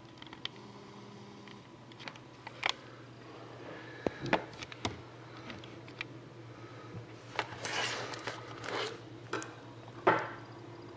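Trading cards and a cardboard card box being handled on a table: scattered light taps and clicks, with brief rustling and scraping about two thirds of the way in and again near the end. A faint steady low hum runs underneath.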